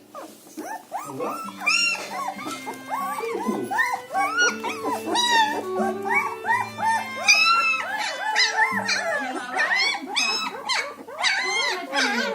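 German Shepherd puppies whining and yelping over one another, many short rising-and-falling cries in quick succession. Music with held low notes plays underneath.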